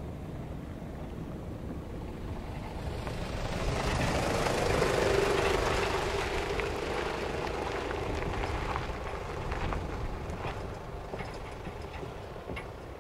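A motor vehicle passes, rising to its loudest about five seconds in and then fading, followed by a run of short light knocks near the end.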